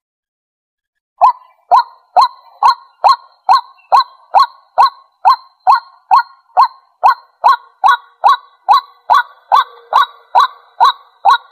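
White-breasted waterhen giving its territorial call: a long, even series of sharp 'kwak' notes, about two a second, starting about a second in.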